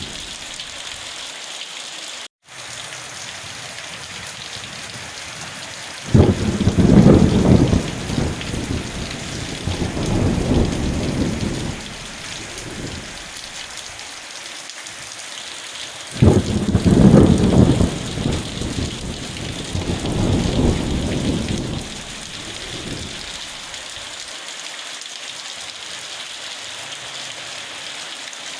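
Steady rain hissing, with two rolling rumbles of thunder: the first starts suddenly about six seconds in, the second about sixteen seconds in, and each dies away over roughly six seconds. The sound cuts out for an instant about two seconds in.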